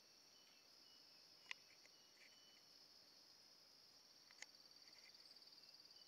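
Faint, steady, high-pitched chirring of forest insects, which turns into a rapid even pulse after about four and a half seconds. Two sharp clicks about three seconds apart, with a few faint short high notes between.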